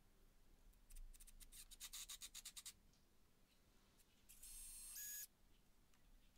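Cordless drill-driver driving screws into plywood, faint: a quick run of rapid clicks about a second in, then a short burst of high motor whine near the end.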